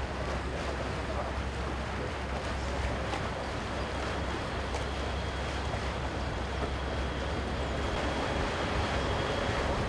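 Wind buffeting the microphone over open harbour water, a steady low rumble with a wash of water noise.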